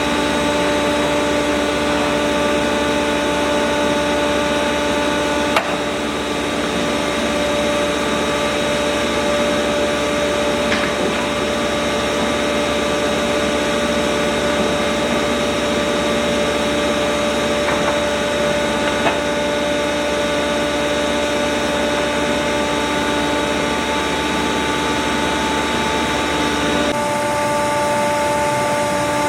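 Workshop machinery running steadily with a whine, such as dust extraction or a power tool, with a few faint clicks. Near the end the sound changes: the deep hum drops away and the whine shifts.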